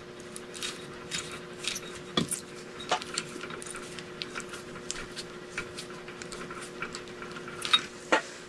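Small hardware being handled and picked through, a scattering of light clicks and clinks at irregular intervals, over a steady low hum.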